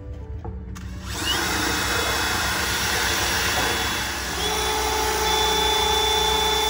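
Cordless drill running under load. It starts about a second in, eases off briefly around four seconds in, then runs on with a steadier, higher whine.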